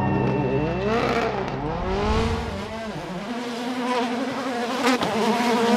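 A World Rally Car's engine accelerating hard through the gears: the pitch sweeps up and drops back at each shift, then holds a steady high note. There is a sharp crack about five seconds in.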